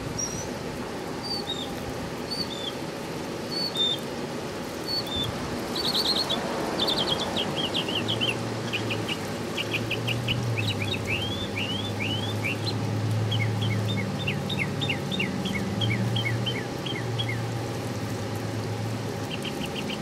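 Kenmore window air conditioner running steadily, with small birds chirping repeatedly over it, the chirps thickest from about six seconds in. A low hum that steps between two pitches joins about eight seconds in.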